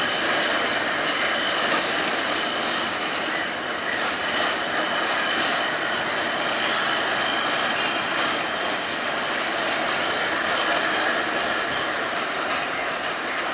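Freight train of a tank wagon and a wooden brake van rolling slowly through yard points and curves. The steel wheels click over rail joints and give a steady high-pitched flange squeal.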